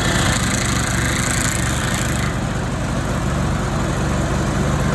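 Vermeer 206 stump grinder running steadily under load, its cutter wheel grinding into a wood stump. A harsher hissing grind sits over the engine for about the first two seconds, then eases off.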